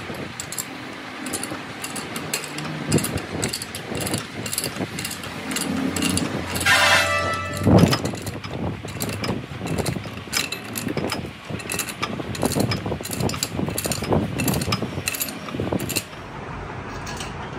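Irregular metal clicks and clanks as a pipe wrench works a transmission input shaft held in a lathe chuck; the lathe is not running. About seven seconds in, a piece of metal rings briefly, followed by the loudest knock.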